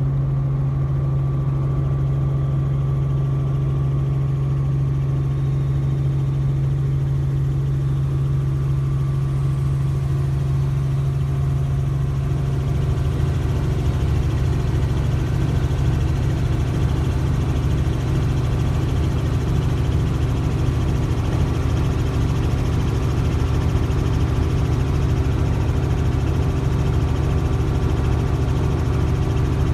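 Helicopter running with a steady, loud drone made of several even tones, growing slightly louder about 13 seconds in.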